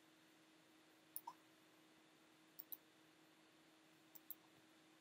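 Quiet computer mouse clicks, three pairs about a second and a half apart, over a faint steady hum.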